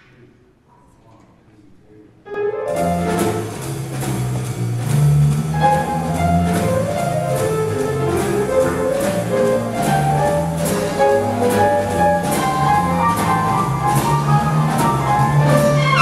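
Jazz grand piano and drum kit playing a swing intro, the drummer keeping a steady cymbal beat. It starts about two seconds in, after a faint quiet stretch.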